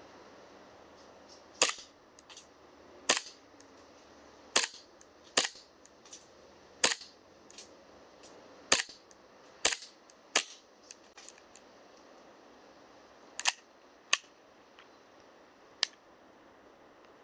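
KSC gas-blowback airsoft Makarov pistol being fired single shot, about eleven sharp cracks at uneven intervals, several followed by a fainter click.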